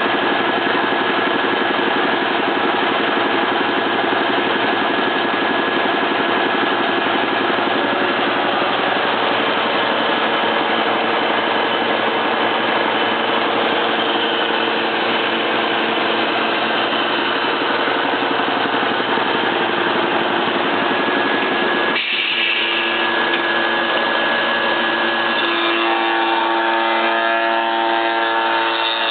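A&B Loc Drive 440 SI automatic rotary shaper, with a 10 hp three-phase motor, running with a loud, steady machine noise. The sound changes about 22 seconds in, turning thinner with steadier tones.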